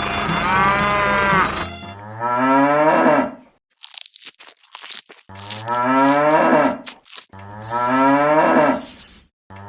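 A cow mooing three times in long, drawn-out calls, with short crunching clicks between the first and second moo. Background music ends just before the first moo.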